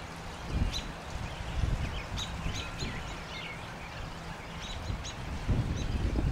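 A flock of American robins calling from a tree: many short, high chirps overlapping, over a low rumble.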